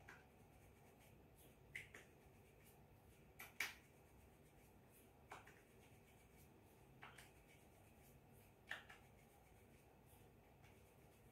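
Near silence: room tone, with faint, sharp, light clicks roughly every one and a half to two seconds.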